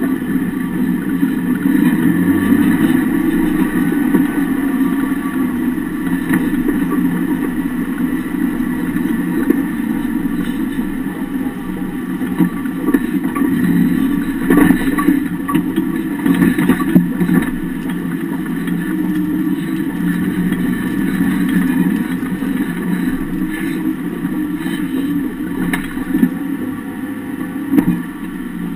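Off-road vehicle driving slowly over rough grass, heard from under the chassis at the rear axle: engine and drivetrain running steadily, with a few sharp knocks about halfway through as the suspension works.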